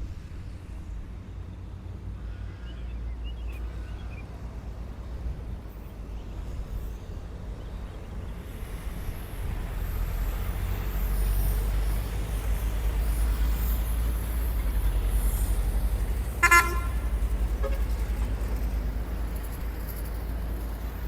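Steady low rumble of road traffic that grows louder part way through, with one short vehicle horn toot a few seconds before the end.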